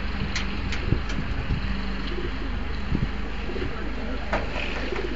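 Racing pigeons cooing in a wire crate, with a few sharp clicks and a steady low hum underneath.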